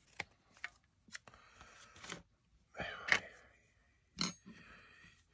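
Handling noises of a repair job: a few sharp clicks and taps with soft rustling in between, as the LED panel, its diffuser and tape are picked up and set down on a silicone work mat. The loudest tap comes about four seconds in.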